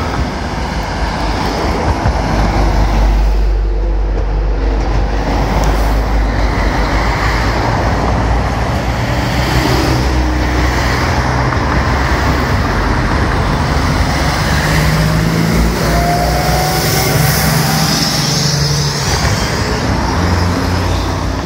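Steady road traffic noise: cars and trucks driving past close by on the roadway.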